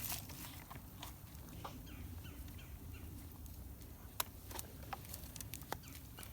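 Faint, scattered crackling and rustling of dry leaves and brush as a shot deer is handled and rolled over on the ground.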